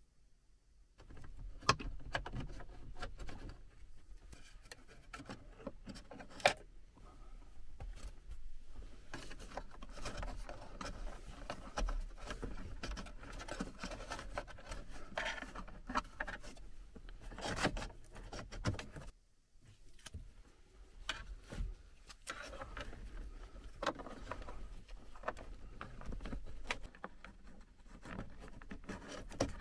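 Hands handling wiring and plastic plug connectors while feeding them into an opened car dashboard: irregular clicks, rustling and scraping, with a short pause about two-thirds of the way through.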